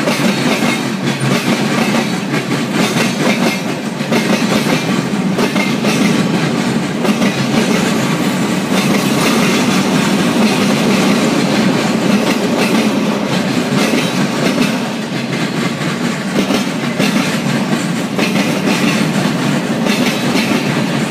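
A BNSF freight train's cars rolling past: a steady, loud rumble from wheels on rail, with a continuous run of clicks as the wheels cross the rail joints.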